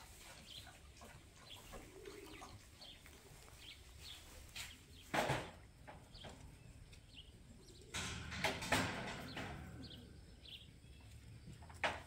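Small birds chirping in the background, with a low coo about two seconds in. A few short, louder noises break in about five seconds in, again around eight to nine seconds, and once more right at the end.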